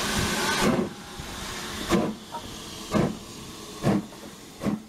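Steam locomotive letting off a loud hiss of steam, then moving off with four exhaust chuffs about a second apart, coming slightly quicker.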